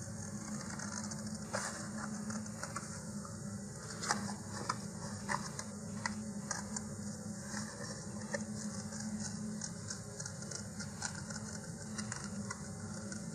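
Scissors snipping through thin printed cardboard: a run of short, irregular clicks and crunches as the blades close in small cuts along a line.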